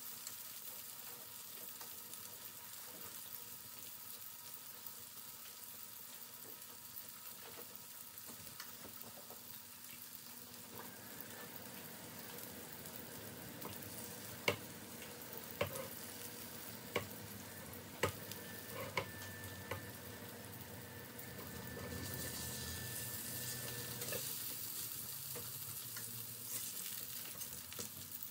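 Green tomato slices frying in oil in a pan, a steady faint sizzle. A few sharp clicks come in the middle, and the sizzle swells louder for a couple of seconds near the end.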